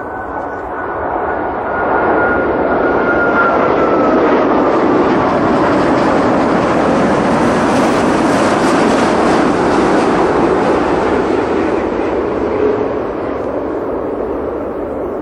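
Airbus A380 with four Rolls-Royce Trent 900 turbofans passing low on final approach. A rushing jet noise swells over the first couple of seconds and eases off near the end, and a high engine whine drops in pitch as the aircraft goes by.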